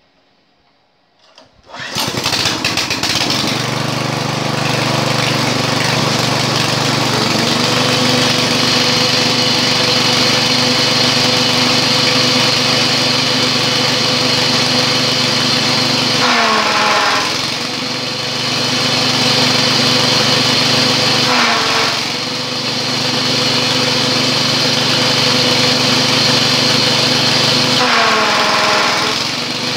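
A chaff cutter's small single-cylinder petrol engine is pull-started and catches at once, about two seconds in, then runs at a steady high speed. Three times its speed sags briefly and recovers, the engine loading up as bundles of rice straw are fed into the cutter blades.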